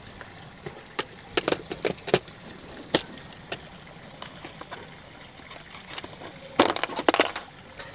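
Hand tools handled in a moulded plastic tool case. Scattered sharp clicks come as a utility knife is set into its slot, then a louder clatter near the end as a set of metal hex keys in its holder is pulled out of the case.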